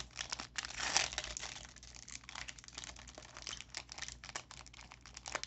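Baseball-card pack wrappers crinkling and tearing as packs are opened by hand: a continuous, irregular crackle, loudest about a second in.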